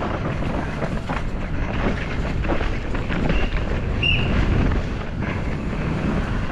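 Wind rushing over the microphone, with the tyres and frame of a downhill mountain bike rattling and knocking over rough ground during a fast descent. The noise drops off sharply at the very end.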